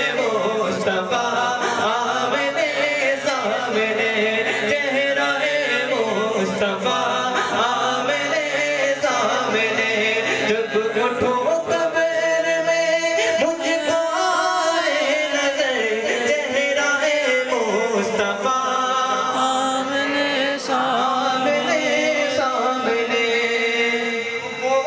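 A man singing a naat, a devotional Urdu song, into a hand-held microphone: an unbroken melodic line with long held notes.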